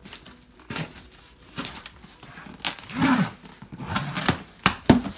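Large cardboard shipping cartons being handled and shifted: scattered scrapes and knocks of cardboard, ending in a couple of sharp taps near the end.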